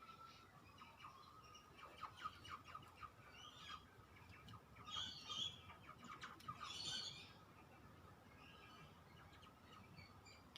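Faint bird calls: scattered short high chirps and ticks, then two louder bursts of high chirping about five and seven seconds in, over a faint steady high tone.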